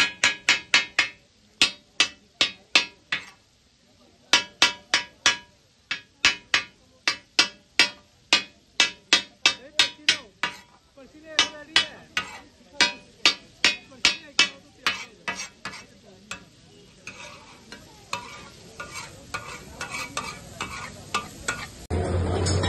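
Metal spatulas striking and chopping chicken on a hot flat iron tawa griddle: a fast metallic clacking, about three to four strikes a second with a couple of short pauses, over a sizzle. The strikes grow fainter and sparser near the end.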